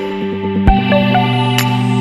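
Background music: an ambient electronic track with held synthesizer chords and a low beat.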